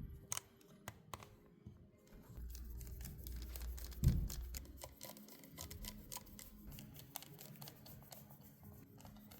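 Faint clicks and light taps of small tools and parts being handled on an opened MacBook Pro during reassembly, with a soft thump about four seconds in.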